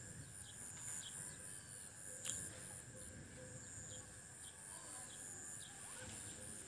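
Faint rural background: insects trilling steadily at a high pitch, with short bird chirps every second or so and one sharp click about two seconds in.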